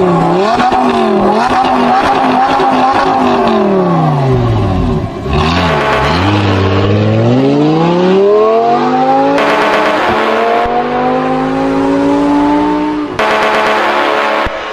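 Car engine revving sample opening a slowed, reverb-heavy drift phonk track. The engine pitch wavers, sinks low about four seconds in, then climbs steadily for several seconds, with abrupt cuts between sections.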